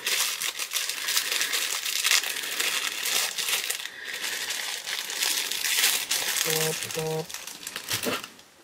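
Crinkly packaging being handled and unwrapped, an irregular run of crackling and rustling that stops near the end.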